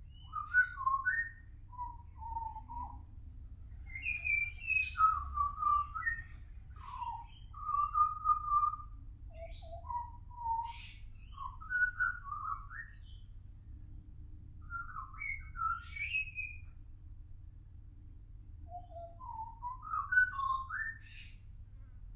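Juvenile pied butcherbird singing: a run of short, fluting whistled phrases that glide up and down in pitch, with pauses between them. The last phrase climbs steeply.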